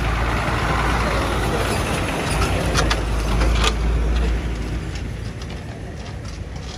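Ashok Leyland truck's diesel engine running as it drives past close by, loudest for the first four seconds and then fading as it pulls away. There are a couple of short knocks about halfway through.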